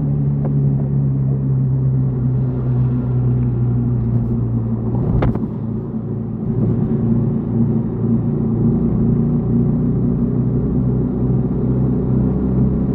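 Yamaha XTZ 150 Crosser S's single-cylinder four-stroke engine running under way, with low wind rumble on the microphone. The engine note drops just after the start, then holds fairly steady, with a single sharp click about five seconds in.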